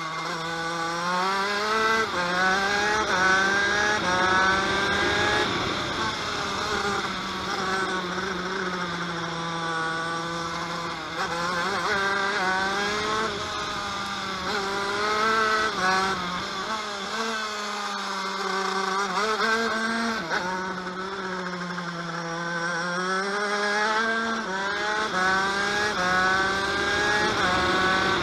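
TM KV92 125cc two-stroke shifter kart engine, heard onboard while lapping. Its pitch climbs in repeated rising sweeps broken by quick drops at the gear changes, then falls away before climbing again, several times over.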